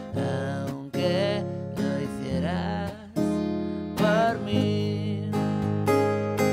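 An acoustic guitar strummed, with a man singing short held phrases over it.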